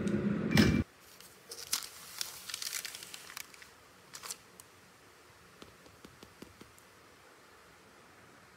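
A voice over music cuts off abruptly just under a second in. Then paper crinkles and rustles in short bursts as a pineapple bun on its paper sheet is handled, tapering to a few faint ticks.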